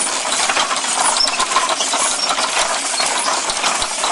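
Hand-cranked machine made entirely of wood running, its wooden gears and pegs clattering in a dense, steady stream of small clicks and knocks.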